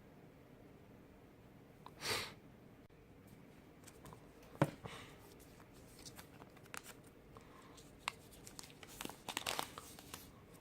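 Packaging handled during a phone unboxing: plastic and paper rustling, crinkling and tearing. There is a short rasp about two seconds in, a sharp click a couple of seconds later, scattered small ticks, and a flurry of crinkling near the end.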